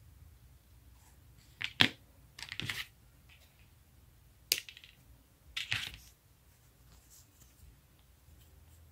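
Handling sounds of crochet work: a sharp click about two seconds in, then a scissors snip cutting the yarn a couple of seconds later, each followed by a brief rustle of yarn and hands.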